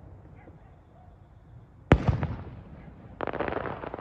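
Fireworks display: one aerial shell bursts with a single sharp bang about two seconds in, its rumble dying away, then a dense spell of crackling near the end.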